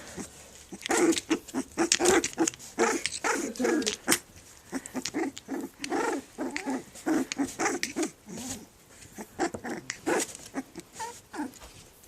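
Three-week-old Pembroke Welsh corgi puppy giving many short, high little play growls and yaps in quick succession while it mock-attacks, with small sharp clicks among them.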